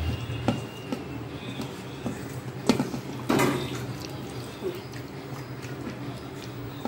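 Wet, sticky mixing as a hand kneads whole anchovies into a thick chilli and ginger-garlic marinade in a stainless steel bowl, with a couple of sharper wet smacks about three seconds in, over a steady low hum.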